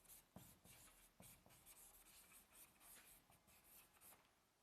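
Faint scratching of someone writing by hand, short strokes following one another several times a second.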